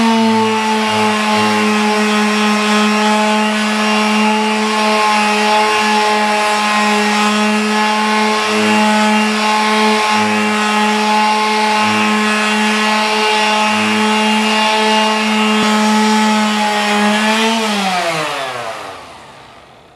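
DeWalt quarter-sheet palm finish sander running at steady speed with 400-grit paper on a softwood board, a steady hum. Near the end it is switched off and its whine falls in pitch as it spins down.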